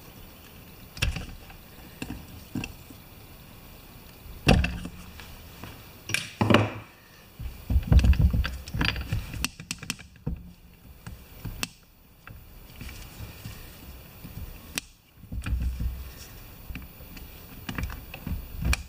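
Irregular metal clicks, scrapes and knocks as a tool works at a snap ring on the axle shaft of an MTD lawn tractor transaxle, with a few heavier thuds as the metal housing is handled on the wooden blocks.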